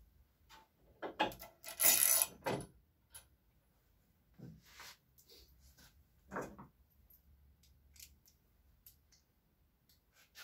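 Small metal parts and hardware clinking and clattering as they are handled during assembly, with the loudest clatter about two seconds in, shorter clinks around five and six seconds, then a few light ticks.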